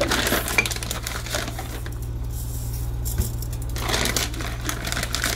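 Dry long-grain rice clicking and pattering into a glass dish in a stainless steel sink, in irregular runs of small ticks with a lull in the middle. A steady low hum runs underneath.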